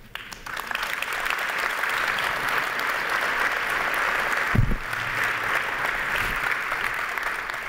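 Audience applauding: dense, steady clapping that swells up within the first second and eases off near the end, with a single low thump about halfway through.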